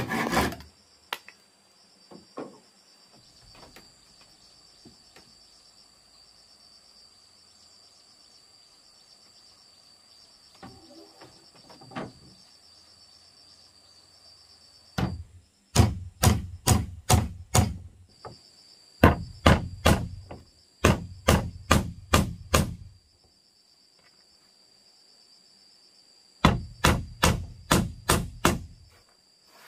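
A hammer driving nails through thin wooden strips into a plank floor, in three runs of quick blows about three a second in the second half. Before that, a steady high chirring of insects. The very start catches the last strokes of a hand saw cutting a board.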